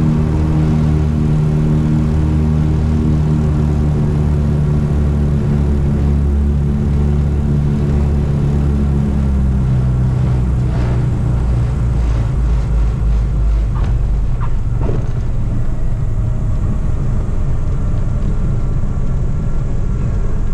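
Cockpit sound of the Tecnam P2006T's two Rotax 912 engines and propellers running at low power through the flare, a steady drone that drops slightly in pitch about ten seconds in. Just after, the main wheels touch down with a short thud, followed by a few light knocks as it rolls along the runway.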